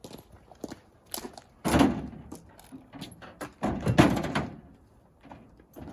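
Two heavy thuds about two seconds apart, the second longer, amid scattered lighter knocks and clicks.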